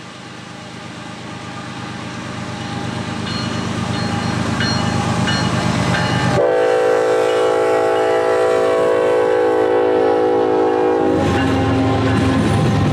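Diesel locomotive approaching and growing louder, its air horn sounding one long chord from about six seconds in until it cuts off about five seconds later, then the engine and train running by.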